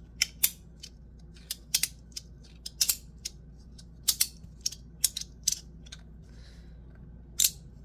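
Aluminum two-click magnetic fidget slider (FidgetThings Tab Chonky Boi, N52 magnets) being slid back and forth by hand, its plates snapping into place with sharp clicks. About fifteen clicks come at an uneven pace, some in quick pairs.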